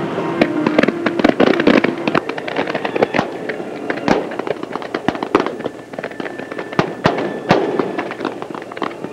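Aerial fireworks going off: a dense run of sharp bangs and crackling pops in quick succession, with several louder reports standing out.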